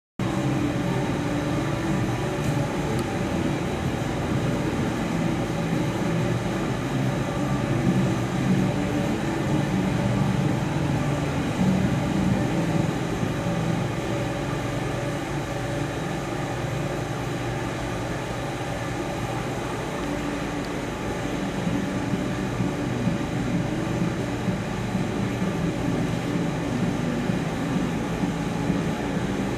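A steady, loud low rumble with a faint constant hum above it, holding level throughout with no on-off pulsing.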